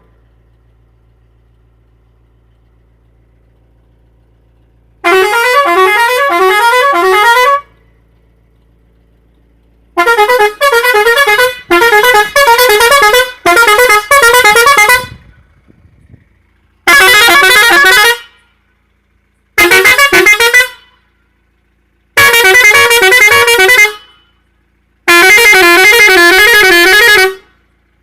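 Vehicle air horns sounding a string of loud musical blasts, each running through a quick pattern of changing notes like a tune. The first five seconds hold only a faint hum before the blasts start, about six spells with short gaps between.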